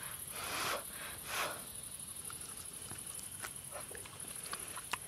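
A person eating food that is too hot, puffing air out twice through an open mouth about a second apart, then faint chewing clicks.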